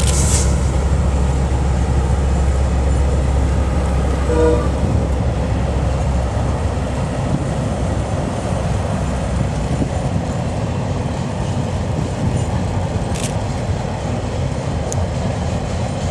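KiwiRail DL class diesel-electric locomotive passing with a freight train: a deep engine drone that fades after about six seconds, leaving the steady rumble of the wagons rolling by. A brief tone sounds about four seconds in.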